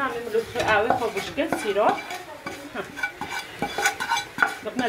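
Wooden spoon scraping and knocking against a non-stick frying pan in a quick run of short strokes, as a fried topping is scraped into a steel pot of molokhia, with some sizzling.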